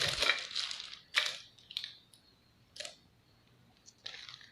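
Crinkling and rustling of handled packaging and small accessories: a longer stretch at the start, then several short bursts with quiet gaps between.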